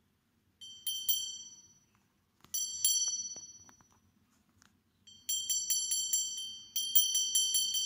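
A small, high-pitched metal bell rung again and again, every strike on the same bright pitch and ringing out briefly. There are a couple of strikes near the start and a few more about three seconds in, then quick runs of rapid strikes from about five seconds on.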